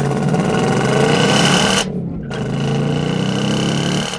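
Ford Mustang GT's 5.0 Coyote V8 running hard under throttle through its active exhaust, the note dropping away briefly about two seconds in and again at the very end.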